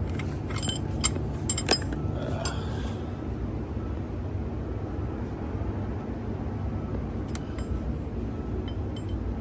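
Light metallic clinks and taps as a pushrod is worked out of a Cummins ISB 6.7 diesel's valve train, which is opened up to chase a cylinder-3 misfire. The clinks cluster in the first few seconds, with a few more near the end, over a steady low hum.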